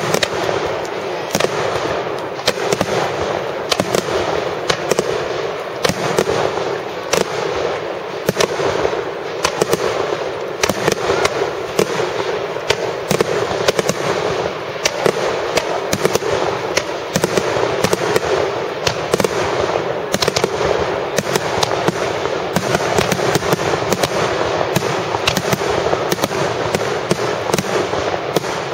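Fireworks display: many shells bursting in quick succession, with sharp bangs several times a second over a continuous crackle.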